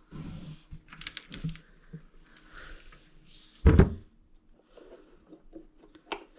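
Lid of a portable fridge/freezer being handled and shut, with light rubbing and clicks, then one loud thud about two-thirds of the way through as it closes against its rubber seal.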